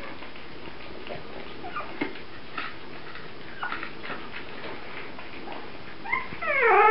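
Faint ticking and small squeaks as a five-week-old puppy mouths an empty plastic bottle, then near the end a puppy whines in a short run of loud cries.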